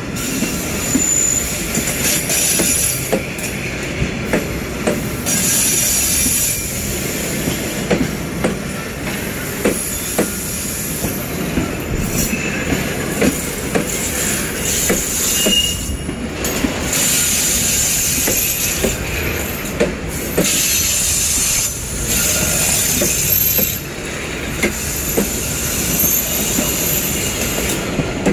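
Freight train of boxcars running on a curve, heard from on board: a steady rumble with frequent clicks of wheels over rail joints and stretches of high wheel squeal that come and go.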